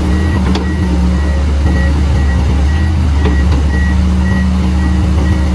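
Komatsu PC220-8 excavator's turbocharged six-cylinder SAA6D107E-1 diesel running steadily under working load, with a travel alarm beeping about three times a second, the warning that sounds while the machine's tracks are driven.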